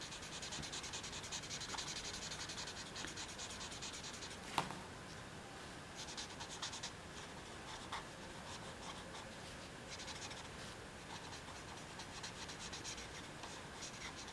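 Stampin' Blends alcohol marker scratching quickly back and forth on cardstock as a stamped image is coloured in: faint, in runs of rapid strokes with short pauses between. A single light tap about four and a half seconds in.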